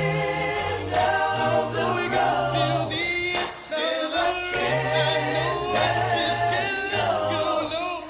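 Background music: a song with singing voices over a low bass line that changes note every second or so.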